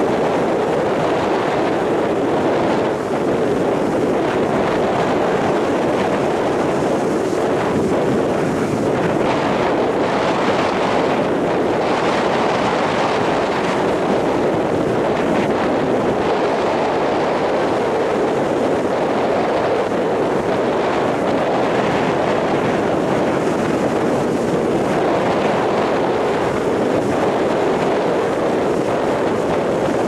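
Rough surf breaking and washing up a sandy beach, with strong wind blowing over the microphone: a steady, loud rush that swells gently as each wave breaks.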